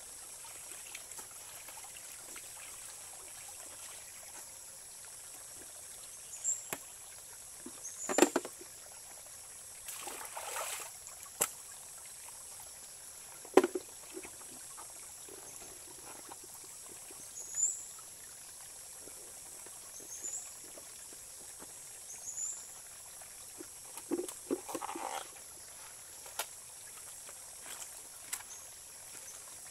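Shallow rocky stream running steadily, with irregular splashes and sloshes of water as laundry is washed and wrung in it and a plastic pail is dipped and handled. The biggest splashes come about a quarter, a third and four-fifths of the way through.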